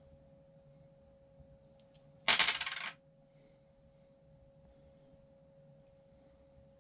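A short, loud metallic clatter about two seconds in, lasting about half a second, like a small metal part dropped on a hard surface, with a couple of faint clicks just before it.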